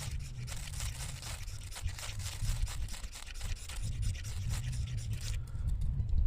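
Rapid scraping strokes for about five seconds, stopping suddenly, over a low steady rumble.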